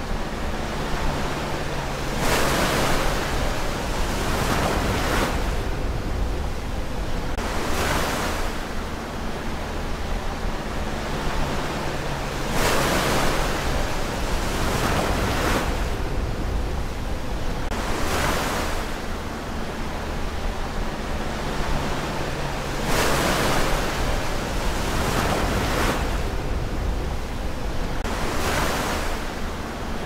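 Ocean surf: waves breaking and washing in, a fresh surge every few seconds over a steady rush of sea.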